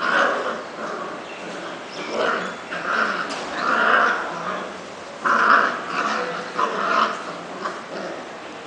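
Two puppies play-fighting, vocalising in short irregular bursts of growls and yips.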